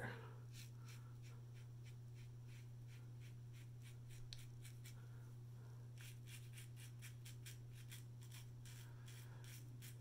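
GEM Pushbutton single-edge safety razor scraping through lathered stubble in short strokes, a faint rapid scratching of cut whiskers. A steady low hum sits underneath.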